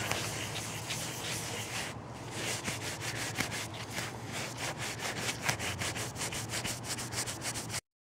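A cloth scrubbing back and forth over an etched copper circuit board, rubbing off the toner resist in quick, regular strokes that stop abruptly near the end.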